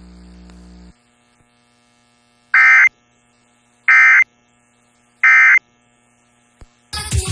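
Emergency Alert System end-of-message code: three short, loud digital data bursts, each about a third of a second long and about a second apart, sent over FM radio. A low hum cuts out about a second in, and rock music starts near the end.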